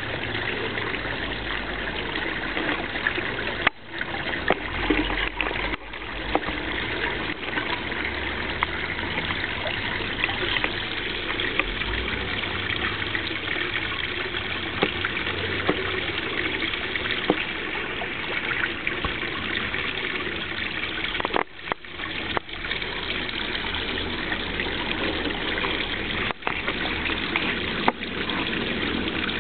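Small rock waterfall splashing steadily into a garden pond, a constant trickling rush of water. The sound dips out briefly a few times.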